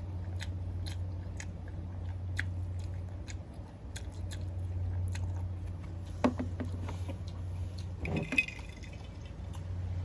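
A person chewing ramen noodles and boiled egg, with mouth clicks about twice a second over a steady low hum. There are two louder mouth sounds about six and eight seconds in.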